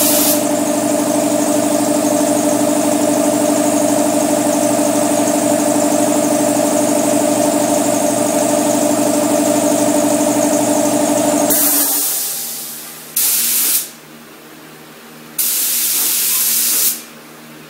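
An air compressor runs steadily with a hum, then shuts off about two-thirds of the way through with a release of hissing air. Two short blasts of compressed air follow from a spray gun, the second about a second and a half long.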